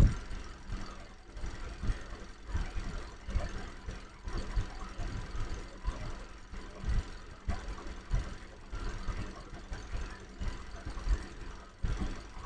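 Kia Optima 2.4 non-turbo four-cylinder engine running, picked up low near where the engine meets the transmission, with an uneven low rumble and irregular knocks. The knocking sounds like loose torque-converter bolts, though the bolts have been checked tight; the mechanic places the noise between engine and transmission and suspects the torque converter or transmission.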